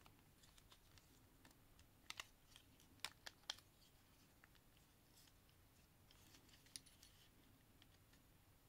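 Plastic parts of a Transformers Legacy Skullgrin action figure clicking as they are moved by hand during its transformation, over faint handling noise: two sharp clicks about two seconds in, three more around three seconds, and another near seven seconds.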